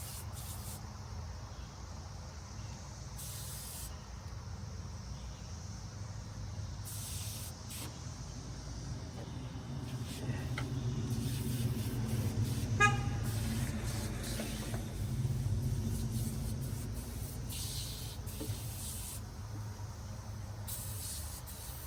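Aerosol engine degreaser spraying in several short hissing bursts a few seconds apart, over a steady low mechanical drone. A short sharp rattle comes about 13 seconds in.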